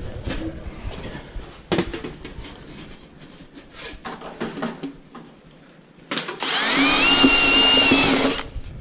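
Cordless drill with a step bit boring a hole through a sheet-metal round duct pipe for a damper. The drill runs for about two seconds near the end, with a squeal that rises in pitch and then holds. Light handling knocks and clatter come before it.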